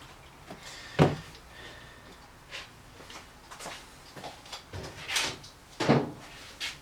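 Handling noises on a workshop bench: a sharp knock about a second in, then light clicks and two short scraping rustles near the end, as containers and tools are moved about.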